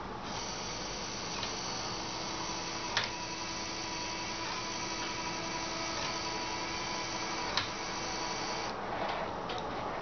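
Small electric gear motor of a modified Armatron robot-arm gripper running steadily with a whir as the claw jaws slowly close, with two sharp clicks along the way; it stops near the end.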